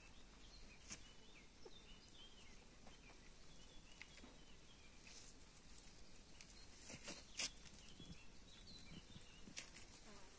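Quiet outdoor air with faint, scattered bird chirps and a few soft clicks, the loudest about seven seconds in.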